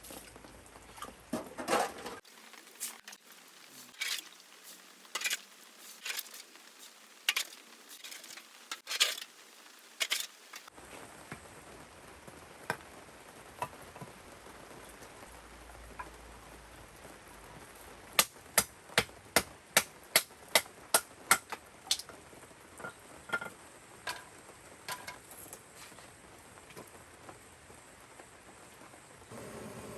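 Steady rain hiss with scattered sharp clicks and knocks, and a quick run of about ten evenly spaced clicks a little past the middle.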